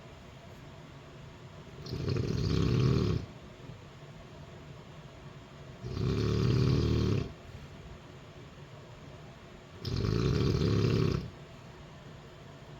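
A woman snoring in a steady rhythm: three loud snores about four seconds apart, each lasting over a second.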